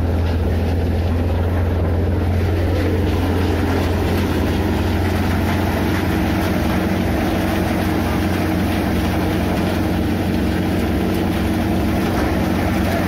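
Groundnut thresher running steadily under load: a loud, constant mechanical drone with a strong low hum and no change in speed.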